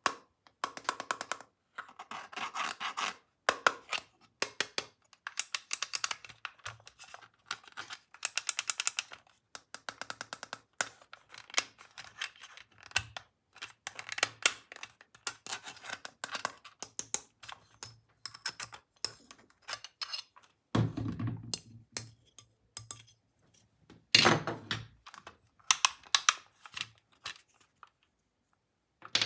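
Plastic toy parts and packaging being handled: dense, irregular clicking and tapping, with a couple of heavier thuds about two-thirds of the way through.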